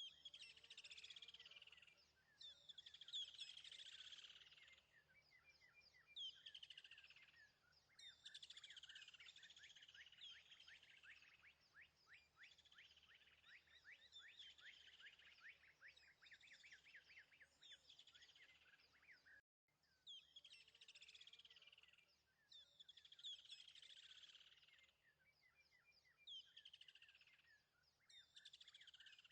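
Faint birdsong: phrases of quick, falling chirps repeating every second or two over a low steady hum, cut off for an instant about two-thirds of the way through.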